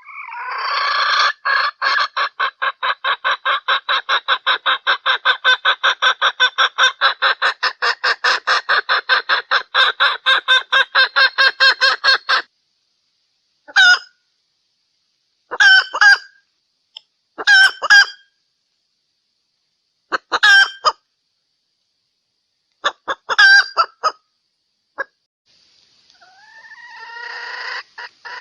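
Hen cackling: a rapid run of repeated pitched clucks, about four to five a second, that breaks off about twelve seconds in, followed by a handful of separate squawking calls a few seconds apart, and another fast cackle starting up near the end. The uploader describes it as a hen calling for a rooster.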